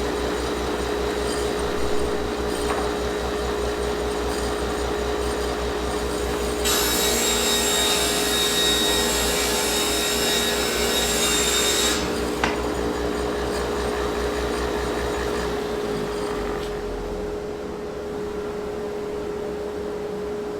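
Table saw switched on and running with a steady whine, then ripping a wood board for about five seconds, starting about seven seconds in, with a bright, loud cutting hiss over the motor; the saw then keeps running free. The old saw runs with some vibration.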